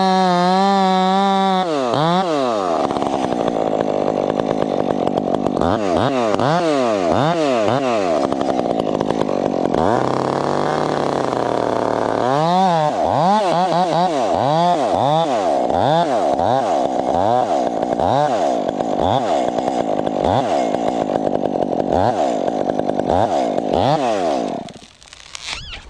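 Chainsaw engine revving up and down over and over, held at high revs at first, with a lower, steadier stretch about ten seconds in. It cuts off near the end.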